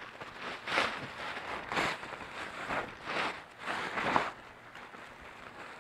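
Blue plastic tarp rustling in a series of short swells, about six in four seconds, as it is unfolded and spread out on the ground, then settling quieter near the end.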